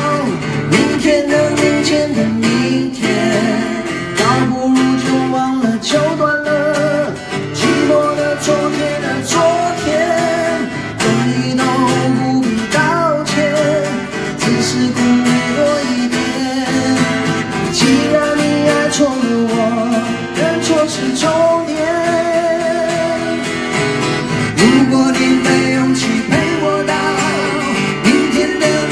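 Live acoustic song: two acoustic guitars strummed and picked together, with a man singing over them.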